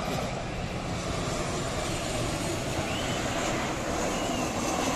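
Jet noise from a Boeing 737 airliner's twin engines as it flies low on final approach to land, a steady rushing sound.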